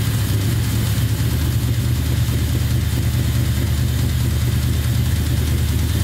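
Small-block Chevy 350 V8 idling steadily with a knock from a spun number 3 rod bearing.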